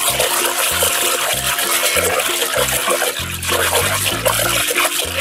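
Water splashing and sloshing hard in a plastic basin as a hand scrubs a small toy car back and forth under the surface. Background music with a steady, pulsing bass line runs underneath.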